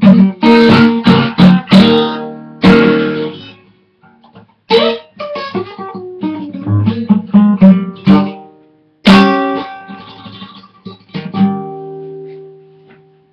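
Guitar played alone in a blues: strummed chords and short runs in phrases broken by brief pauses, ending with a last chord that rings out and fades away.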